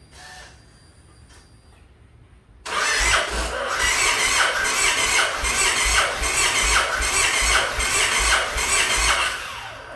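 A 2008 Yamaha XV1900 Stratoliner's V-twin being cranked by its electric starter for about seven seconds, starting a few seconds in, with an even pulsing beat. The engine turns over but never fires: a no-start after a keyless ignition install, with fault codes 22 and 19 showing on the gauge cluster.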